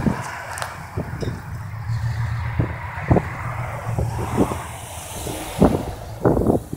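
Cars driving past on a road, with steady tyre and engine noise. Wind gusts on the microphone make repeated short thumps throughout, loudest near the end.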